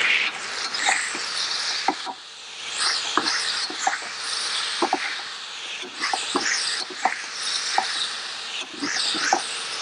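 Metal spatula scraping and clinking against a metal wok as fish and greens are stir-fried, with hissing sizzle from the hot pan. The scrapes come irregularly, about two a second.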